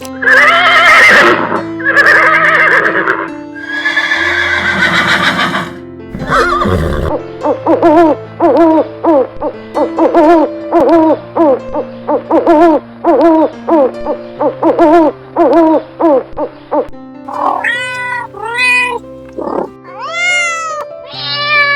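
A series of animal calls over background music: a few longer calls at first, then a long run of short, evenly repeated calls, then several rising-and-falling calls near the end.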